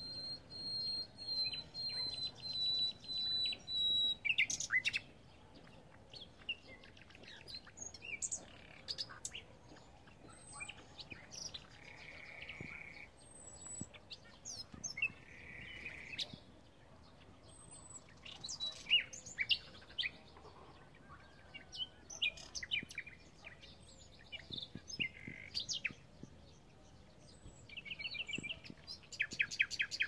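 Nightingale singing in varied phrases separated by short pauses. It opens with a loud series of repeated high whistled notes, and later phrases include dry buzzy rattles and fast runs of repeated notes.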